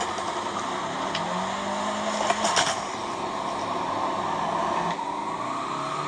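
Car driving along with its engine running steadily, with a few short clicks about two and a half seconds in.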